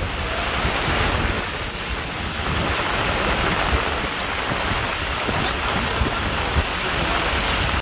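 Heavy downpour falling steadily on creek water and a wooden boat: an even hiss with a low rumble underneath.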